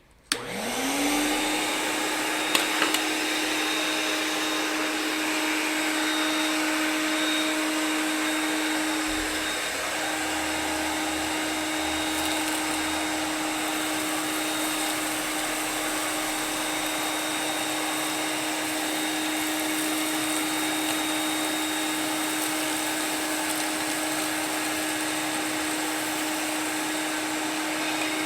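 Vacuum cleaner switched on, its motor spinning up within a second to a steady whine over a rush of air as it draws suction through a homemade cyclone dust separator. A few sharp clicks sound about two and a half seconds in.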